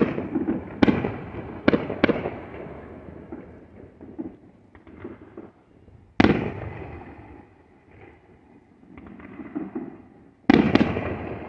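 Aerial fireworks bursting: four sharp bangs in quick succession in the first two seconds, a single bang about six seconds in, and two more close together near the end, each trailing off in a rolling echo, with fainter pops and crackle in between.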